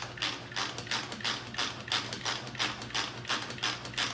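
Pampered Chef manual food processor pumped by hand, its plunger clicking about three times a second as the blades spin through avocado.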